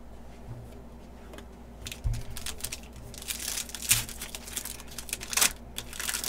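Foil wrapper of a trading-card pack being torn open and crinkled in the hands, starting about two seconds in as a run of uneven crackling rustles.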